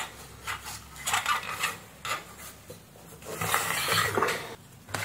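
Handling noise on a workbench: objects rubbing and scraping in several short bursts, the longest about three and a half seconds in.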